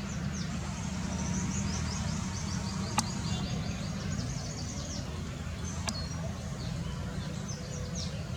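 Small birds chirping and twittering in quick high notes over a steady low hum, with two sharp clicks about three and six seconds in.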